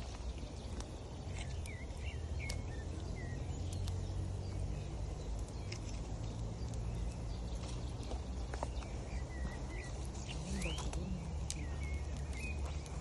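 Wood fire crackling with scattered sharp pops, over a steady low rush of river water. Small birds chirp in short runs near the start and again near the end.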